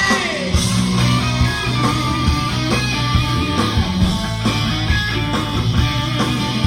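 Live rock band playing an instrumental stretch, led by electric guitar over bass and drums. The whole band comes back in together at the very start, after a short stop.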